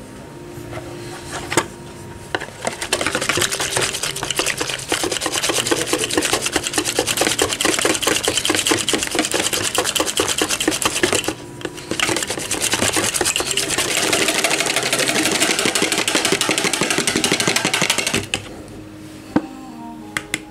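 Wire balloon whisk beating a thick cream mixture in a bowl by hand: fast, continuous scraping and slapping strokes. There are two long bouts, starting a couple of seconds in, with a brief pause about halfway through.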